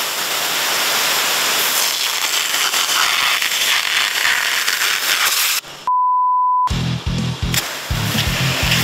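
High-pressure water jet from a 3,000 PSI pressure washer spraying, a loud steady hiss for about five and a half seconds. It cuts off into a short, steady beep just under a second long, then music with a steady beat.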